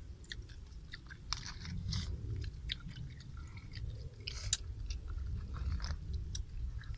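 Cooked snails being eaten by hand: scattered sharp clicks of the shells being handled and picked at, with chewing, the sharpest click about four and a half seconds in. A steady low rumble runs underneath.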